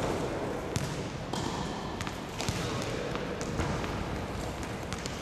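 Tennis rally in a large indoor sports hall: sharp knocks of the ball off the rackets and the hard court floor, several spread out over a few seconds.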